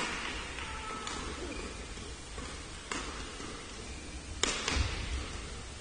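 Badminton rally: rackets striking a shuttlecock with sharp smacks a second or two apart, ringing briefly in the hall. The last two hits come close together near the end. Brief squeaks of court shoes sound between the hits.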